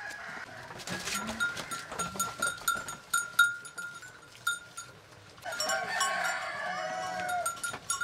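Goats in their shed: a clear bell-like tone rings several times a second, then a drawn-out animal call lasts about two seconds near the end.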